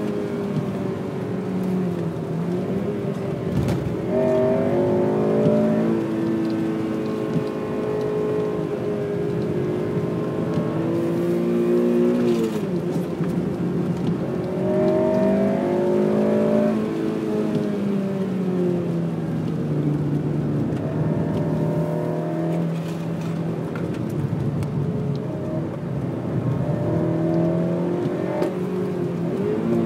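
Honda Civic Type R FN2's 2.0-litre four-cylinder VTEC engine under hard track driving, climbing in revs and dropping off sharply several times as the driver lifts, brakes and shifts, with a steadier stretch about two-thirds of the way through.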